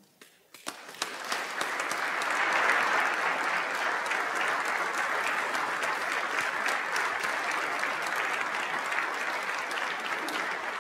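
Audience of legislators applauding, starting about a second in and holding steady until the end.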